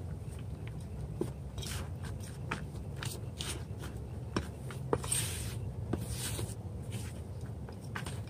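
Small garden trowel stirring and scraping through potting soil in a flowerpot: irregular crunching scrapes and scuffs.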